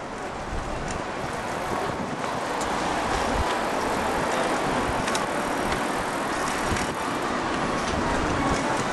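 Steady rushing noise of riding a bicycle along a street: wind and road rumble on the microphone, with a few small rattles and clicks.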